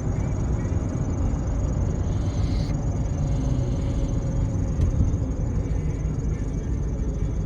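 A car driving along, heard from inside the cabin: a steady low rumble of road and engine noise.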